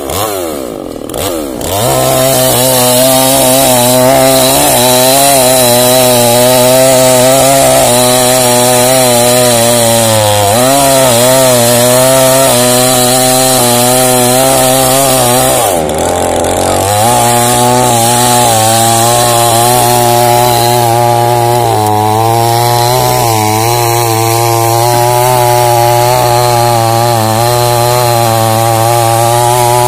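Two-stroke petrol chainsaw cutting through a thick tree trunk. After uneven revving for the first couple of seconds it runs at a steady high speed, with its pitch sagging briefly about ten seconds in and again around sixteen seconds.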